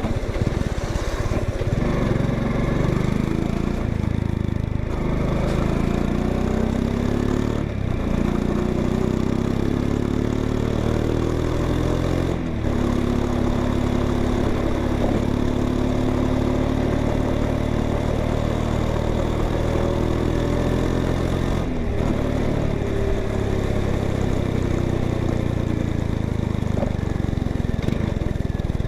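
Honda XRE 190 motorcycle's single-cylinder engine running through its exhaust, its pitch slowly rising and falling with the throttle, with a few brief sharp drops in between.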